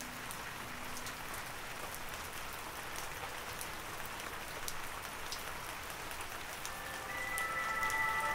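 Steady rain, an even hiss with scattered drop ticks. A few held music notes come in near the end.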